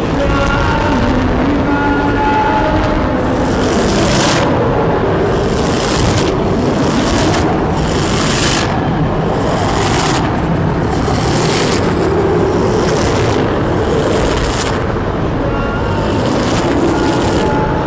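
Experimental noise-music recording: a loud, dense wall of rumbling noise, with hiss that surges in and drops away every second or two and faint wavering tones above it.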